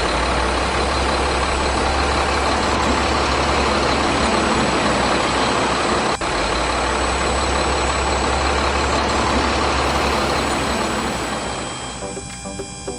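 A heavy vehicle engine running steadily, with a brief drop about six seconds in. It fades out near the end as music comes in.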